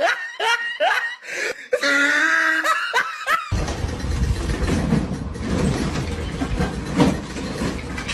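A person laughing, a quick run of falling 'ha' sounds, which stops abruptly about three and a half seconds in and gives way to a steady rumbling noise with a few faint knocks.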